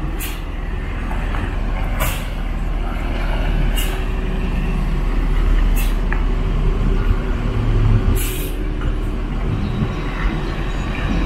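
Mercedes-Benz coach's diesel engine rumbling steadily as the bus pulls slowly away, with about five short hisses of compressed air from its air system spaced roughly two seconds apart.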